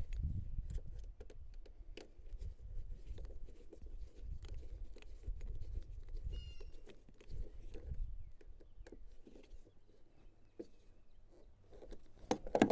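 Small clicks and scrapes of a screwdriver driving the screws back into a zero-turn mower's plastic switch panel, over a low rumble.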